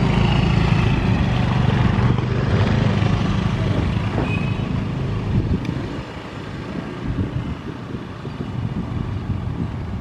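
Small motor scooters running as they ride past close by over the level crossing. Their engines fade away about five or six seconds in, leaving a quieter, uneven rumble.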